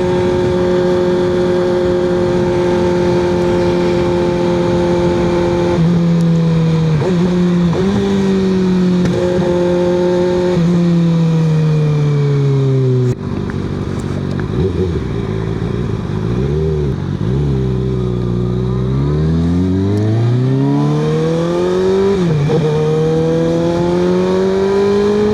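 Kawasaki ZX-6R 636 inline-four running through an M4 exhaust with the Q3 Stage 2 baffle in, heard while riding: a deep exhaust note with no drone. It holds a steady cruise, then drops in pitch through several shifts and slowing to low revs about eighteen seconds in, then revs up in a rising pull with a gear change near the end.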